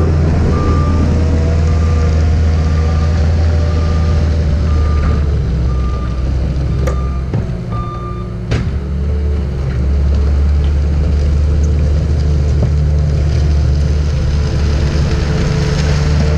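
Cat 279D compact track loader's diesel engine running hard, its backup alarm beeping about once a second while it reverses, until the beeping stops about halfway through. The engine then eases off for a few seconds, with two sharp clanks, and runs back up.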